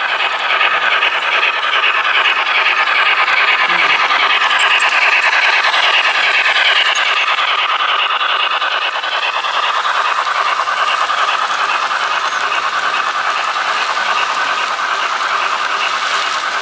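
MTH die-cast model train, an N&W Class J with its passenger cars, rolling past close by on the layout track: a steady rolling rumble of wheels on the rails, loudest in the first half.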